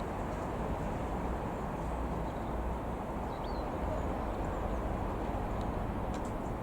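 Distant twin-turboprop drone of a Cessna F406 Caravan II, a steady low rumble, with faint bird chirps over it.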